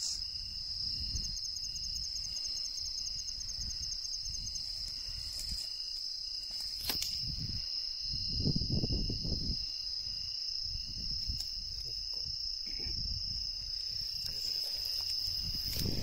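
Crickets calling: a steady, high continuous trill, with a slower, lower chirp repeating about three times a second beneath it. Low rumbles come and go underneath, and a sharp click sounds about seven seconds in.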